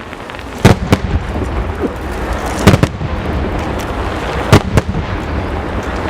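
Fireworks going off: three pairs of sharp bangs, each pair a split second apart, about two seconds between pairs, over a steady background rumble and hiss.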